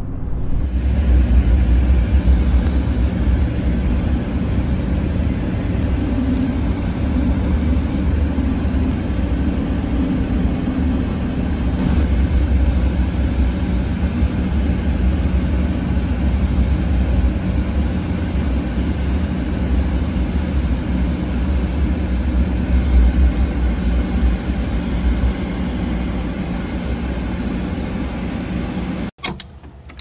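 Steady vehicle engine and road noise, a low rumble that cuts off abruptly near the end.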